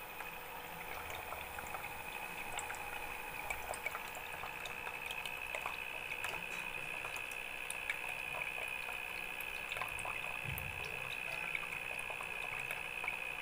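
Water from a small DC motor pump running through a plastic tube and splashing back into a plastic bottle: a steady trickling and bubbling with many small drips, over a steady high whine.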